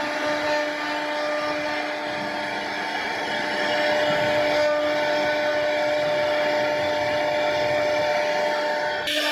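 CNC router spindle running with a steady whine while its carving bit cuts a relief pattern into a solid wooden door panel, with the noise of the bit chewing through the wood. The sound changes abruptly shortly before the end.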